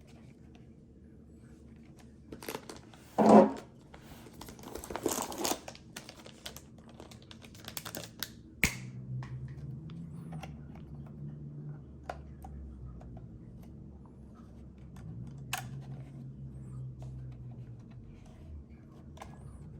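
Unboxing handling sounds: packaging rustling and crinkling, with short clicks and taps as parts are handled and set down. The loudest rustle comes about three seconds in, a sharp click follows near the middle, and a low steady hum sits underneath for several seconds after it.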